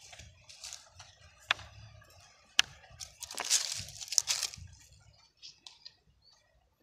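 Stones and dry plant debris handled on dirt ground: two sharp knocks of stone, then a burst of rustling and scraping about three seconds in, then a few faint ticks.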